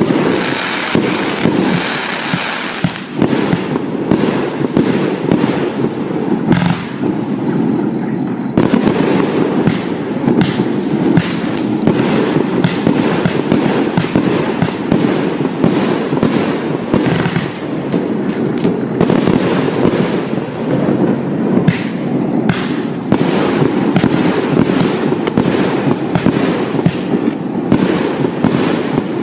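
Vivid Pyrotechnics 'Face Off' 53-shot, 30 mm firework cake firing its shots in quick, unbroken succession: a continuous run of launch thumps and bursting shells.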